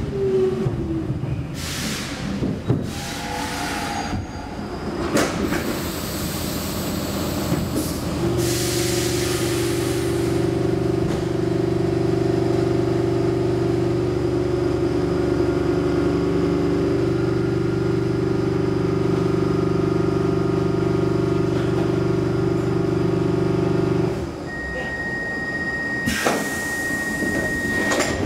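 Stockholm metro C6 train standing at a platform, heard from inside the car. A falling whine as it comes to a stop, a few knocks, then a steady hum of several tones from the train's onboard equipment for about sixteen seconds. Near the end the hum stops, a steady high tone sounds for a few seconds, and a burst of air hiss follows.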